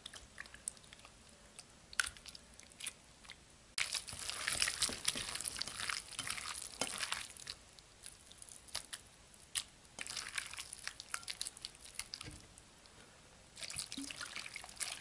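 Chunky borax-and-clear-glue slime being squeezed and kneaded by hand, making wet, sticky crackles and clicks in stretches. Near the end, water is poured into the bowl.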